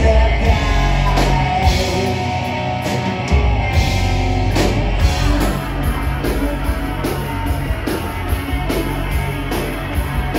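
Rock band playing live on stage: electric guitars over a drum kit, loud and continuous, with the drums keeping a steady beat in the second half.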